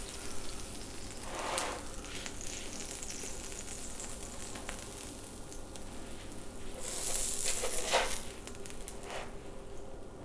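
Mushroom-walnut burger patties sizzling faintly on an electric griddle, with a plastic spatula scraping and sliding under them as they are lifted onto the buns, louder about a second in and again a little past the middle.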